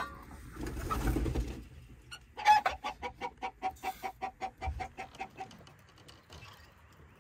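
A hen clucking in a fast, even run of short notes, about seven a second for some three seconds, after a brief low rustle near the start.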